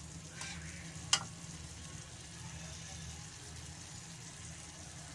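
Julienned taro frying gently in a metal pan with a faint sizzle while a spatula stirs it, with one sharp clink of the spatula against the pan about a second in, over a low steady hum.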